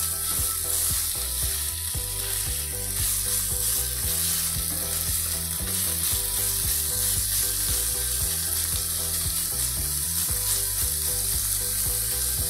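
Cubed chicken frying in olive oil in a pan, a steady sizzle now that the chicken's released water has cooked off and it is browning, while it is being stirred.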